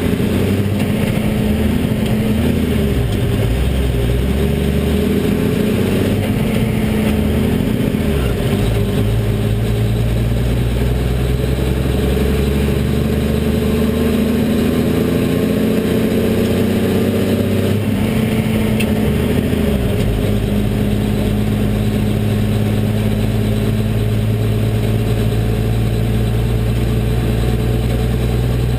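Cummins diesel engine of a military 5-ton 6x6 dump truck, heard from inside the cab as it pulls away. Its pitch climbs and drops back several times as it is shifted up through the gears, then settles into a steady run for the last several seconds.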